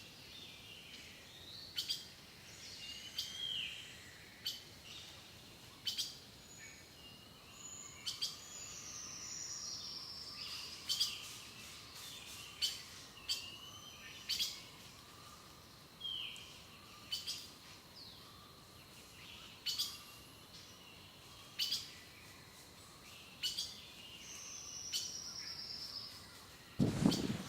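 Wild birds calling in winter: sharp short call notes repeated about every one to two seconds, mixed with short whistled notes and a couple of quick falling trills. A louder dull thump comes near the end.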